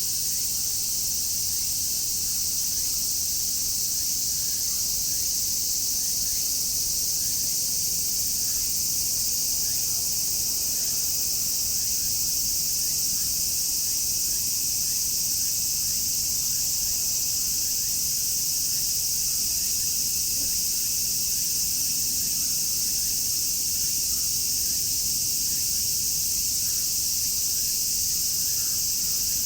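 Dense chorus of many cicadas shrilling together in a continuous high-pitched drone that holds steady without a break.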